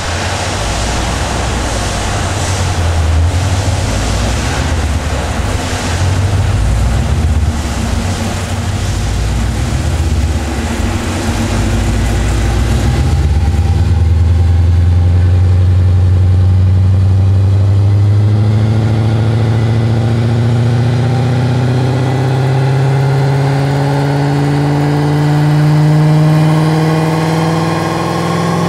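BMW E39 M5's S62 V8 running on a chassis dyno. For the first half a loud rushing noise sits over a low engine note. About halfway through the rush fades, and the engine note climbs slowly and steadily as the revs rise through a pull.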